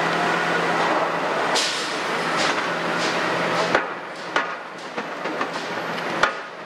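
Kobelco 350 hydraulic excavator's diesel engine running steadily, with sharp knocks and clanks from the grapple handling demolition rubble; the loudest knocks come just over halfway through and near the end, and the engine noise drops a little after the first of them.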